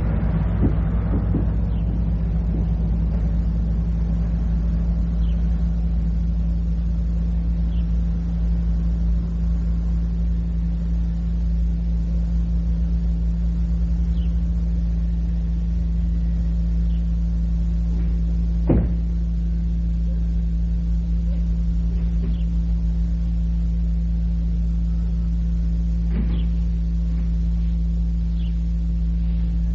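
Steady low electrical hum and rumble on an old cassette recording, with a few faint short high chirps now and then and a single sharp click about two-thirds of the way through.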